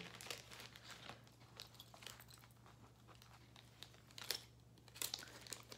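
Faint rustling, crinkling and small clicks of jewelry and its packaging being handled, with two sharper clicks a little past four and at five seconds in.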